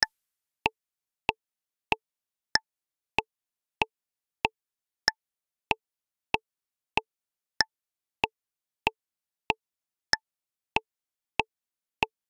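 Metronome click track counting in at 95 beats per minute in 4/4: twenty short clicks, about one and a half a second, with a brighter accented click on the first beat of each bar.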